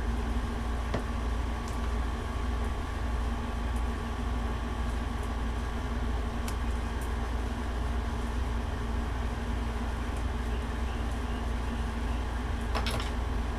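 Steady low background hum with a constant tone in it, like room machinery or air conditioning, with a few faint clicks.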